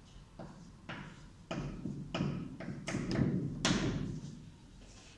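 Chalk on a blackboard as a circuit diagram is drawn: about seven sharp taps and short scrapes, the loudest one late on.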